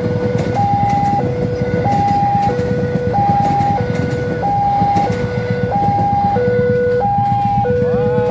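Railway level-crossing warning alarm sounding its electronic two-tone signal, a high note and a low note alternating, each about half a second long, over a steady low rumble of engines.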